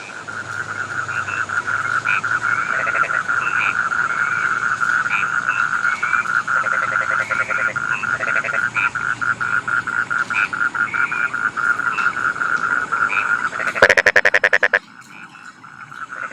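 A chorus of rice-field frogs: a fast, steady trill of rapid pulses, with other frogs' shorter, higher calls over it. Near the end one louder pulsed call lasts about a second, then the chorus drops briefly and picks up again.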